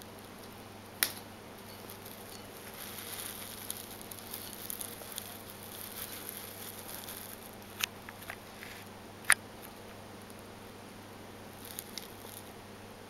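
Soft scratchy rustling of a budgerigar moving about on carpet, with a few sharp clicks. The loudest click comes about two-thirds of the way through.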